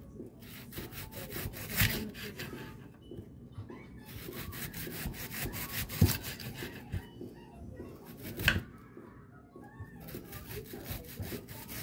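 Kitchen knife slicing through an onion in a quick back-and-forth scraping rhythm, with a few louder knocks: one about two seconds in, one about six seconds in, and one about eight and a half seconds in.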